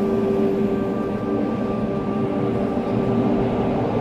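A train running along the track: a steady rumble with several held humming tones over it.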